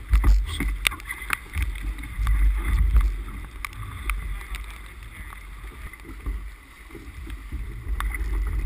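Wind buffeting the microphone of a camera on a sailboat under way, coming in low rumbling gusts over a steady hiss of wind and water. Several sharp taps and clicks fall in the first few seconds.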